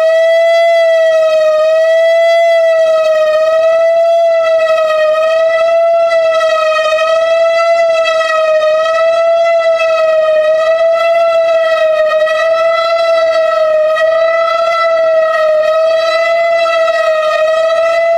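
Whelen 4004 electronic tornado siren sounding a steady tone for a test, loud and holding one pitch with a slight regular waver.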